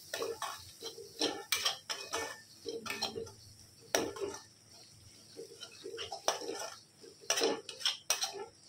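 A flat spatula scraping and clanking against a metal kadhai in irregular strokes, stirring a thick masala paste as it fries on low flame.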